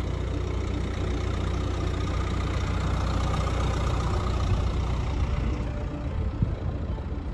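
Dacia Duster driving over soft sand: steady engine and tyre noise.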